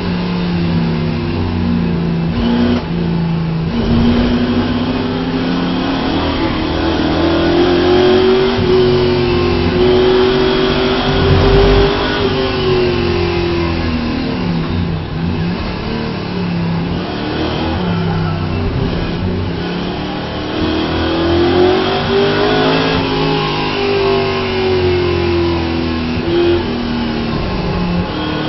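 Ford Mustang race car's engine heard from inside the cockpit at lap pace, its pitch climbing for about ten seconds, falling away, climbing again and dropping near the end as the car slows for a corner. There is a short low thump about halfway through.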